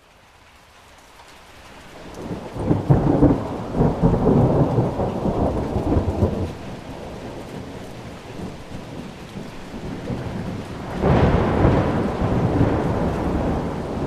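Thunderstorm: steady rain fading in, with two long low rolls of thunder, the first starting about three seconds in and the second about eleven seconds in.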